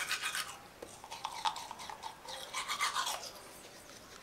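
Manual toothbrush scrubbing teeth in quick back-and-forth strokes, coming in short bursts with brief pauses between.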